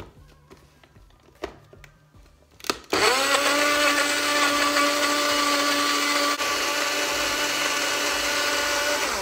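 Personal bottle blender: a few clicks as the bottle is seated on the motor base, then about three seconds in the motor starts, quickly spins up to a steady whine and runs for about six seconds before stopping. It is blending strawberries with yogurt into a smoothie.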